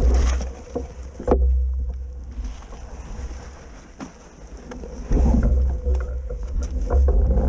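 Wind buffeting the camera microphone in gusts, a deep rumble that comes and goes three times, with a few scattered knocks.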